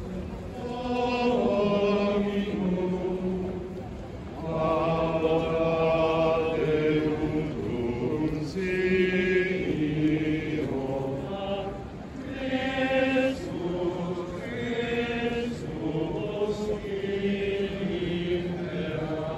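A group of men's voices singing plainchant while walking in procession: held notes in long phrases with brief pauses between them.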